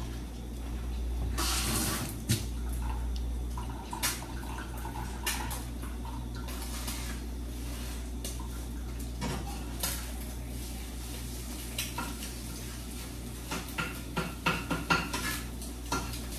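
Cooking utensil clinking and scraping against a frying pan as rice is stirred into fried egg, in scattered short strokes that come thickest near the end, over a steady low hum.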